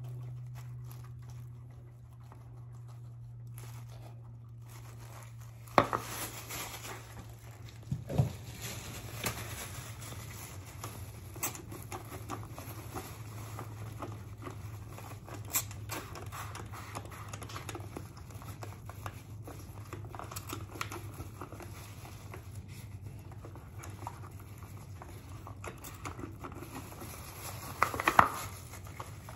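Thin plastic gloves and a plastic bag crinkling and rustling while a hand mixes in a plastic bowl and handles plastic bottles, with scattered light clicks and knocks over a steady low hum. Rustling begins about six seconds in, with a louder clatter near the end.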